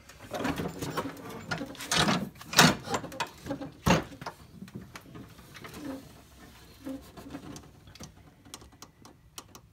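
Handling noise: a few sharp knocks and rustling in the first four seconds, then faint scattered ticks.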